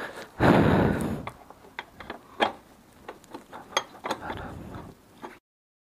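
Handling noise from refitting a motorcycle's rear wheel: a loud scraping rustle about half a second in, then scattered sharp metallic clicks and knocks as the wheel and its parts are worked into place. The sound cuts off abruptly near the end.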